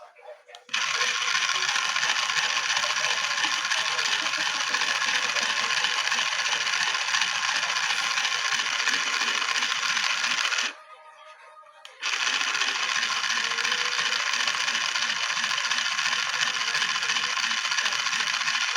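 Toy washing machine running with a steady rattling buzz that starts abruptly, cuts off after about ten seconds, and starts again a second later.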